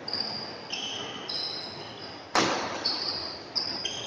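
Badminton rally: players' shoes squeal repeatedly in short high-pitched bursts on the court floor, with one sharp racket smack on the shuttlecock a little past halfway.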